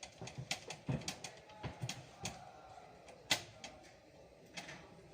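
Irregular light clicks and knocks of hands working on a desktop PC's case and parts, with one sharper click about three seconds in.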